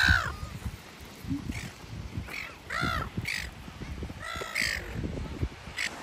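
Silver gulls calling: a string of about seven harsh, arched squawks, the loudest right at the start, over a low rumble.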